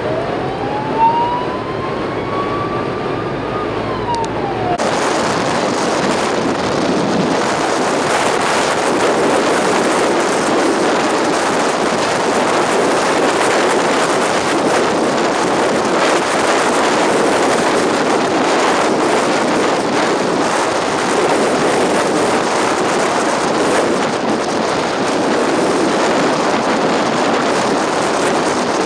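An emergency-vehicle siren wailing in one slow rise and fall, which cuts off abruptly about five seconds in. From there on, strong storm wind buffets the microphone with a steady, dense roar.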